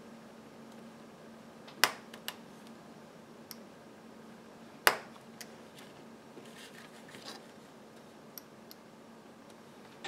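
A hobby knife blade pressed down through a thin styrene strip onto a cutting mat, giving sharp clicks, the two loudest about two and five seconds in, with fainter ticks and short scratches between. A faint steady hum lies underneath.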